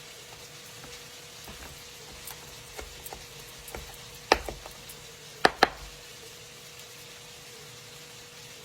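Knife knocking on a cutting board while chopping sun-dried tomatoes: a few light taps, then three sharp knocks around the middle. Chicken frying in a pan sizzles faintly and steadily underneath.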